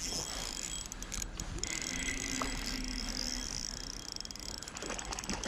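Ultralight spinning reel being cranked by hand to retrieve a trout spoon, a rapid mechanical whirring tick that grows denser toward the end.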